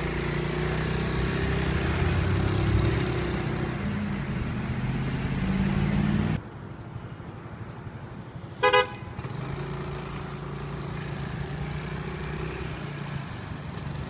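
Road traffic with vehicle engines running past, cutting off abruptly partway through, then quieter traffic. A single short toot of a vehicle horn comes a little past the middle.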